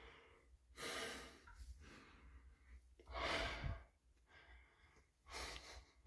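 A caver breathing out hard three times, about two seconds apart, while crawling through a tight passage; the middle breath is the loudest.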